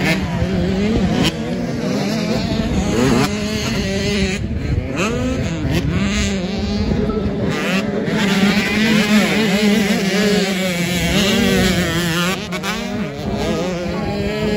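Several motocross bike engines revving up and easing off as they ride the track, their pitches rising and falling and overlapping.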